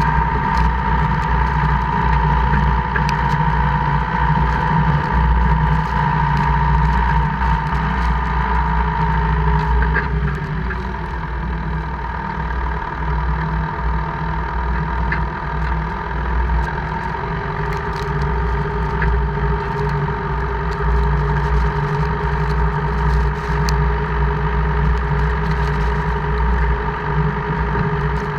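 2002 Jeep Cherokee KJ drivetrain running under way: a steady whine over the engine hum changes pitch about ten seconds in, with scattered faint clicks. This is the gear-grinding and clicking noise that comes only in four-wheel drive (4H or 4L), whose cause the owner does not know.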